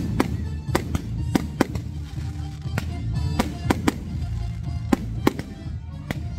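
Aerial fireworks bursting overhead: about a dozen sharp bangs at irregular intervals. Music plays steadily underneath.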